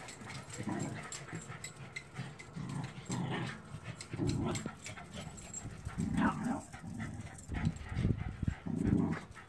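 Corgis whining and yipping in an irregular string of short calls, one rising higher about six seconds in.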